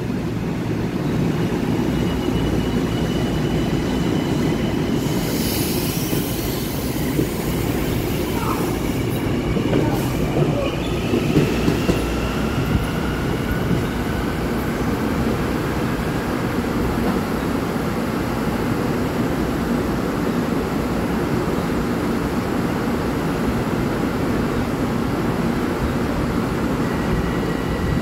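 LIRR M9 electric multiple-unit train pulling out and rolling away over the rails. A steady low rumble of wheels and motors runs throughout, with faint high whines and wheel squeal that glide in pitch.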